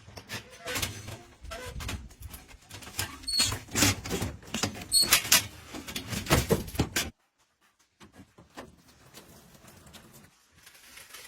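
Pigs being handled: repeated knocks and clatter with a few short high squeaks. The sound cuts off suddenly about seven seconds in, and fainter clatter follows.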